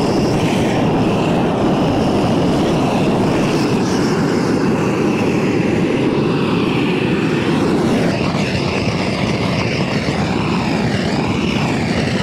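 Long-wand propane torch burning with a loud, steady flame noise as it is played over a wet metal roof seam to dry the metal before sealing.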